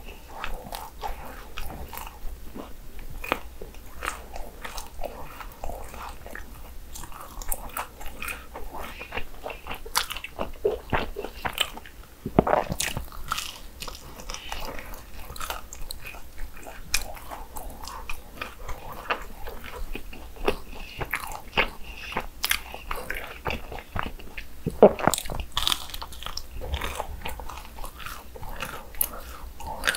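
Close-miked biting and chewing of crispy fried churros: a steady run of crunches and crackles, with louder crunchy bites about 12 seconds in and again about 25 seconds in.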